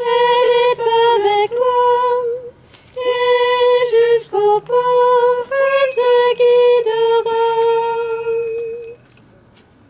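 A woman's voice singing a Marian hymn unaccompanied, in short phrases with brief breaths between them, ending on a long held note about nine seconds in.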